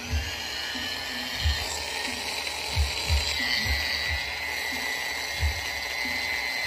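Oster Model 10 clipper's rotary motor, fitted with a new armature and just oiled, running steadily with a high whine after winding up to speed at the start. A few low knocks from handling come through now and then.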